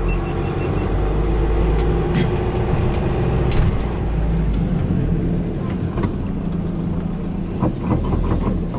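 Tour minibus driving, heard from inside the cabin: steady engine and road rumble. The deep rumble eases about halfway through as the bus slows.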